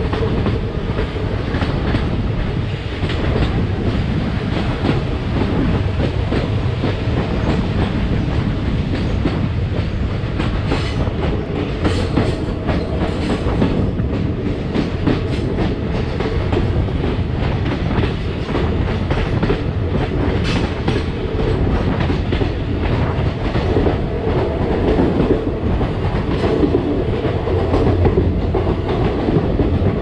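Passenger train running steadily, its wheels clicking over the rails under a constant rumble, heard from an open window beside the coach.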